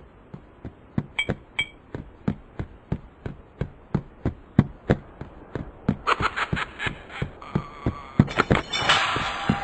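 Cartoon footsteps: a steady run of knocks about three a second. A high rattling clatter joins about six seconds in, and a louder rush of noise comes in near the end.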